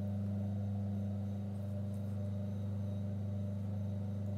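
Electric potter's wheel motor humming steadily as the wheel runs, with a low even drone.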